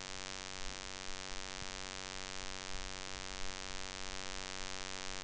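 Steady electrical mains hum with a buzz in the recording, over a faint hiss, with a few faint ticks.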